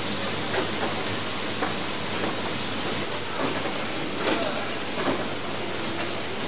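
Steady, even hiss and hum of a semiconductor factory's assembly hall, with a handful of short clicks and knocks scattered through it, the loudest a little past the middle.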